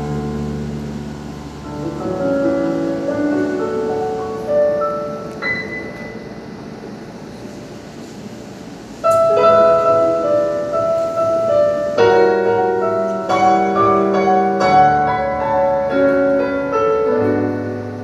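Recorded instrumental introduction to a worship song: a slow piano-led melody over held low notes, growing louder and fuller about nine seconds in.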